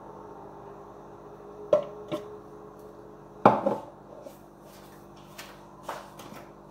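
A seasoning shaker handled in the kitchen: a couple of light clicks, then a sharp knock about halfway through as it is set down on the wooden worktop, followed by a few small taps, over a faint steady hum.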